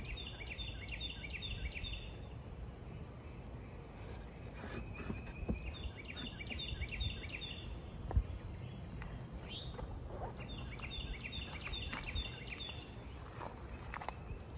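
A songbird singing the same short phrase of quick, evenly repeated high notes three times, about every five to six seconds, over a low outdoor rumble. A sharp knock comes at the start and another about eight seconds in.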